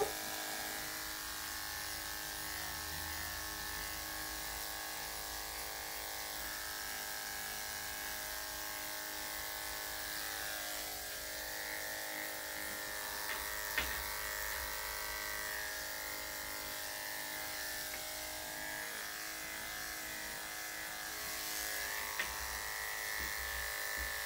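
Corded electric dog-grooming clippers running steadily with a constant buzzing hum as they shave the coat on a small Yorkshire Terrier cross's hind leg and rear. Two faint clicks come once about halfway through and again near the end.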